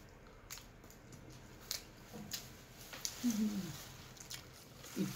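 Cooked shrimp being peeled by hand: shells cracking and snapping as scattered small clicks and crackles.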